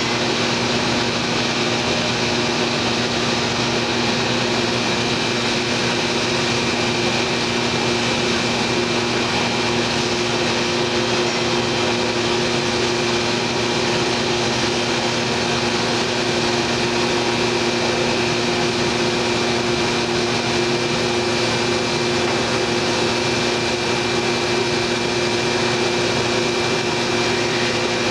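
Thermwood C-40 CNC router running steadily: a constant machine noise with a steady hum and a thin high whine over an even hiss, unchanging throughout.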